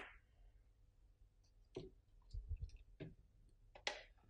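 Faint small clicks and taps from iPhone parts and flex test cables being handled on a tabletop as the LCD screen's connector is fitted and the screen set down, with a few soft low thumps about halfway through and the sharpest click near the end.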